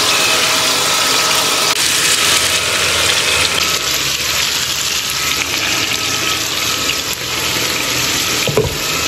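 Potato strips frying in hot oil in frying pans, a steady sizzle, with a knock from the pans near the end.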